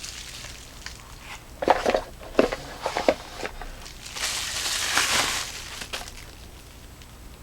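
A flashlight being taken out of its box: a few sharp knocks and clicks from the packaging, then a longer rustling scrape about four seconds in.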